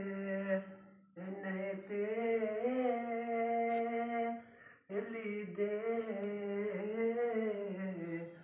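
A young man singing solo with no instrument, holding long, slowly wavering notes in chant-like phrases, with short breaks for breath about a second in and near five seconds.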